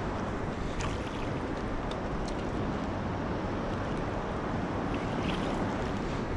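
Steady wind rushing over the microphone together with choppy river water lapping against a concrete bank, with a few faint ticks.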